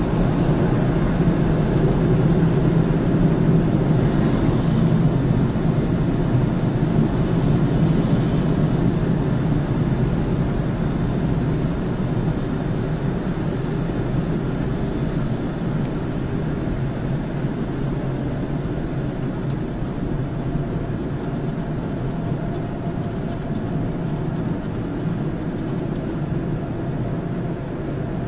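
Automatic car-wash machine running: a steady mechanical rumble and wash noise that eases off slowly.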